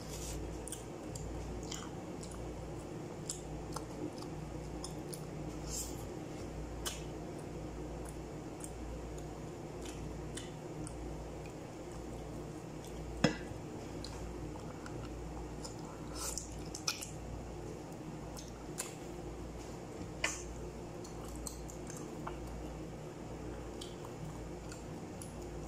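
Close-up eating sounds of a man chewing and biting stewed goat trotters held in his hand: wet, squishy mouth sounds with scattered sharp smacks and clicks, the loudest a little past halfway, over a steady low hum.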